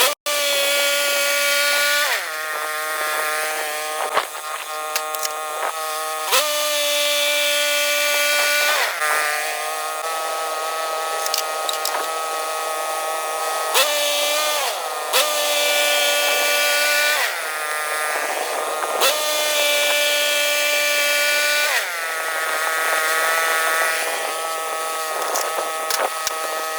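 Portable bandsaw mill running and cutting through a poplar log, its engine and blade giving a steady high whine. The pitch holds for a few seconds, then sags or shifts several times as the cutting load changes, with a few sharp ticks along the way.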